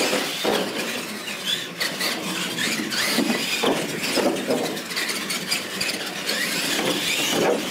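Brushed-motor RC monster trucks racing on a tile floor: a whine that rises and falls in pitch as they speed up and slow down, with squeals from the tyres and drivetrain.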